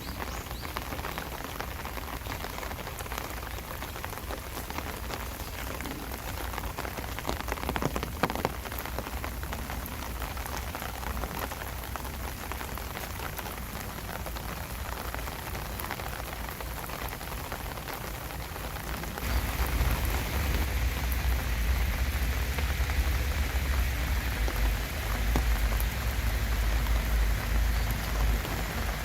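Steady rain falling, an even patter of drops. About two thirds of the way through it abruptly gets louder, with a deep low rumble added under the rain.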